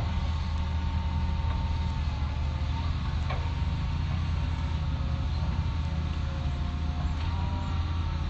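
Hitachi excavator's diesel engine running steadily: a deep drone with thin whining tones above it that shift in pitch now and then, and a sharp click about three seconds in.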